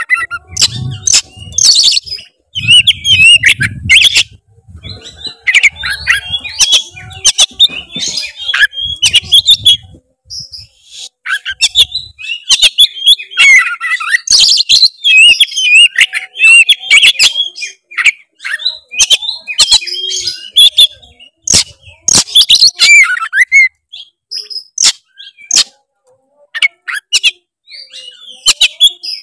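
Oriental magpie-robin (kacer) singing continuously: a rapid, varied run of whistles, chirps and sharp clicking notes with short pauses. It is the bird's full, aggressive song aimed at a rival, used as lure audio to set other magpie-robins singing.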